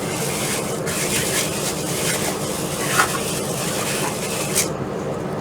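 Steady background hiss with light rubbing and scraping as items in a cardboard mystery box are handled, with a small click about three seconds in and another near the end.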